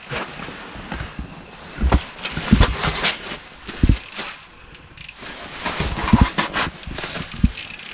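Irregular knocks, clicks and rustling of close-up handling, with a few low thumps spread through.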